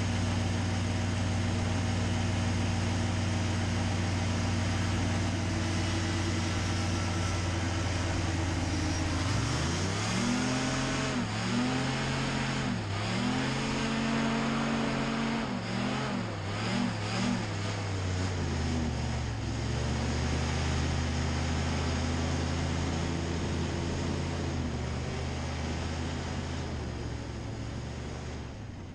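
Racing hovercraft's engine and fan heard from on board, running loud and steady, then revving up and down repeatedly about a third of the way in as the throttle is worked, before settling back to a steady note and fading out near the end.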